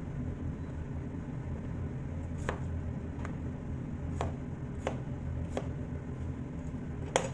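Kitchen knife chopping potatoes into chunks on a plastic cutting board: about six separate knocks of the blade against the board, irregularly spaced, the last one near the end the loudest, over a steady low hum.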